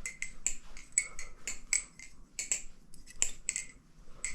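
LDY Corvus balisong being flipped: its handles and pivot clack and click sharply over and over in an uneven rhythm, a few clicks a second, with a brief lull near the end.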